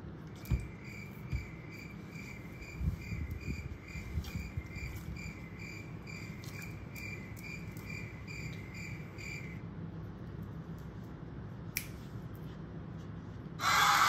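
Cricket chirping, an even chirp at one steady pitch about twice a second, which stops about two-thirds of the way through. A few soft thumps come in the first few seconds, and a loud rushing hiss like static starts just before the end.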